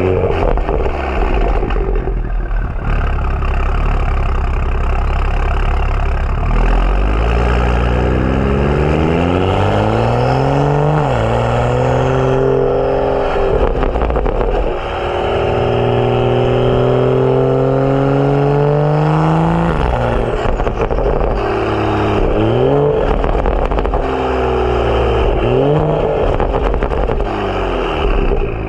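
BMW F30 335i's turbocharged N55 inline-six, with a catless downpipe and M Performance exhaust, pulling hard. Its note climbs in pitch and drops sharply at gear changes about eleven and twenty seconds in. Several shorter rises and falls follow near the end.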